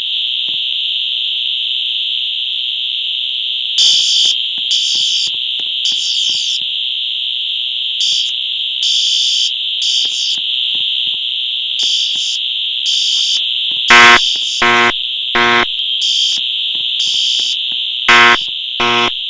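Fire alarm system sounding in a test: a steady high-pitched tone throughout, joined from about four seconds in by pulsing alarm horns. Near the end a louder horn sounds two groups of three short blasts, the temporal-three evacuation pattern.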